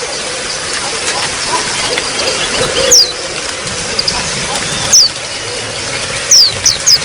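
Water trickling steadily, with a bird's short, high, falling calls: two about two seconds apart, then three in quick succession near the end.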